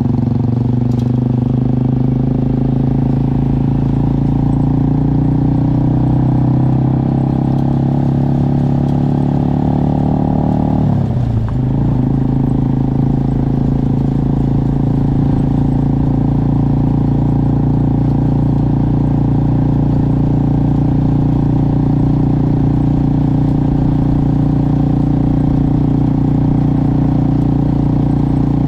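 Motorcycle engine running at a steady pitch. About eleven seconds in, the pitch briefly dips and picks up again, as at a gear change.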